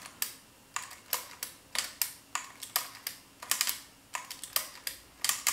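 Automatic cassette deck mechanism clicking sharply and irregularly, about fifteen clicks, as its solenoid is worked and the programming wheel shifts the heads and levers from play toward rewind.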